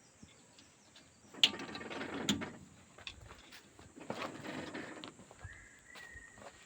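Two bursts of metallic mechanical clanking and rattling, each about a second long, the first with two sharp clicks in it. A thin high whistle-like tone follows near the end.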